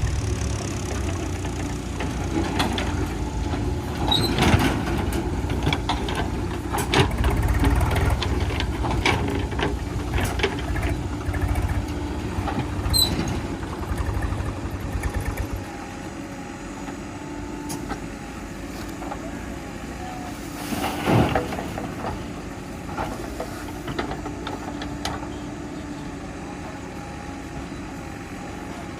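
Heavy diesel machinery running, with a steady engine hum and scattered metallic clanks and knocks. A deep rumble runs through the first half and drops away about halfway. One louder clank comes a little past two-thirds of the way.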